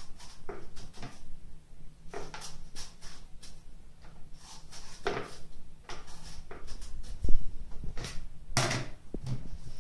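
Kitchen knife scraping along an eggplant as the skin is peeled off, in short irregular strokes. A dull thump about seven seconds in is the loudest sound.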